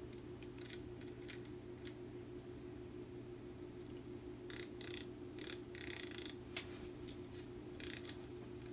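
A steady low hum runs under scattered short scrapes and clicks of metal parts being handled at a John Deere tractor's jacked-up front steering knuckle. The clicks bunch up a little past halfway and again near the end.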